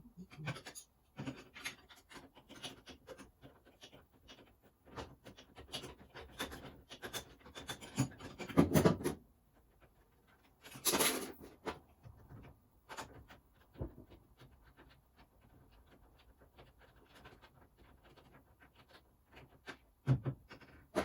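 Hand tools and car parts being handled during work on the car: scattered clicks, scrapes and knocks, with a louder clatter about nine seconds in and a brief rushing noise about eleven seconds in.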